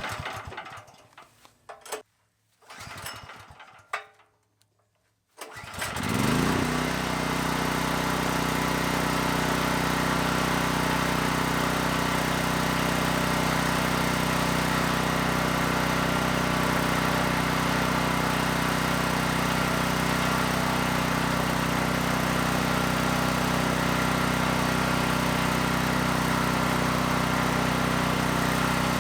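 Briggs and Stratton Storm Responder portable generator being pull-started: a few short recoil pulls, then about five seconds in the engine catches, revs up briefly and settles into steady running.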